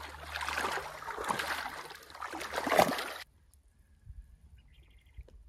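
Hooked carp thrashing and splashing at the surface of shallow water, in several surges with the loudest near three seconds in. The splashing then cuts off abruptly to quiet.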